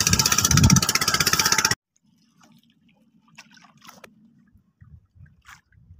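Small petrol engine of an outrigger fishing boat running with a fast even beat, cut off suddenly under two seconds in. Then faint water lapping and small taps against the wooden hull over a faint low hum.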